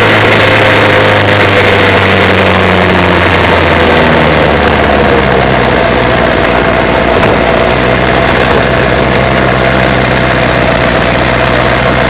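Dallara 392 single-seater's VW four-cylinder racing engine, its revs dropping over the first few seconds as the car slows after the run, then running at a steady idle.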